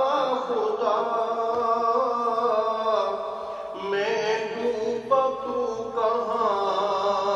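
A man chanting a devotional Islamic recitation into a microphone, in long held melodic notes with ornamented bends, phrase by phrase, pausing for breath about three and a half seconds in.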